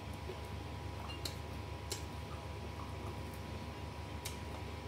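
Quiet eating sounds: a few sharp clicks from chewing and picking at fried food with the fingers, over a steady low hum.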